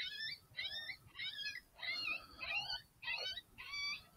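FoxPro X24 electronic predator caller playing a recorded prey distress sound to lure coyotes: a high, wavering squeal repeated about seven times at an even pace. It comes in abruptly right at the start.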